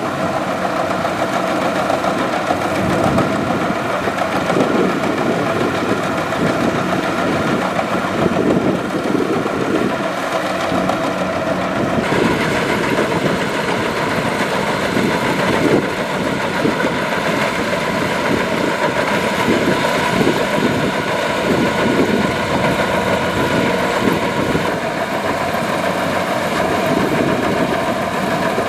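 Kubota DC-105X combine harvester's diesel engine running steadily, its tone brightening a little about twelve seconds in.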